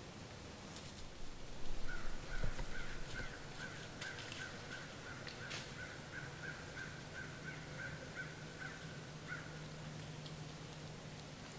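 A bird calling a long series of short, evenly spaced notes, about three a second, for around seven seconds. Loud rustling comes just before and under the first calls.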